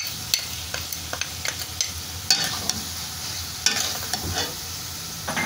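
Spatula stirring a frying mix of vegetables, chicken, shrimp and egg in a metal karai (wok): a steady sizzle with irregular scrapes and clicks of the spatula against the pan.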